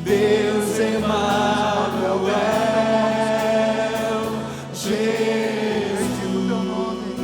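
Slow gospel worship music: voices singing long held notes over a steady sustained accompaniment.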